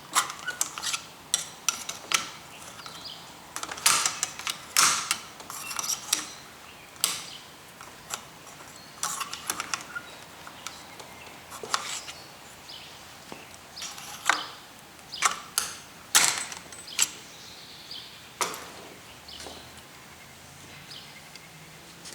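Small metal parts and tools clinking and clicking on a workbench as a BB gun's removed plunger assembly is handled: irregular sharp clicks and clanks, fewer near the end.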